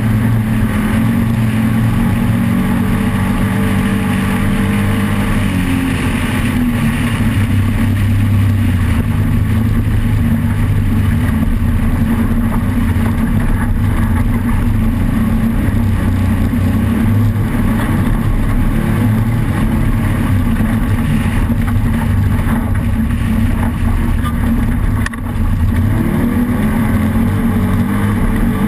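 Off-road race vehicle's engine running hard at steady high revs, with a brief dip near the end.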